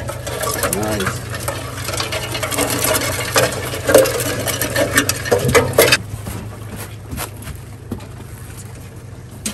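Live crawfish clattering and scrabbling over a metal sorting table as the catch is pushed across the grate: a dense crackle of shells on metal that thins out to a few scattered clicks about six seconds in.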